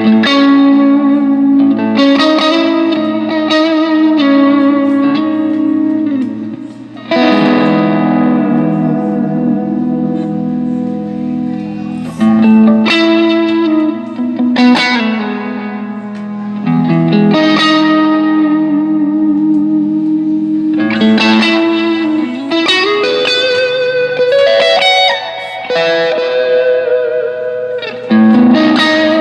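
Squier Vintage Modified Stratocaster electric guitar played through a Zoom G3X multi-effects unit: ringing chords and single notes with reverb, one note bent upward about two-thirds of the way through. Picked up by a phone's microphone in a small room.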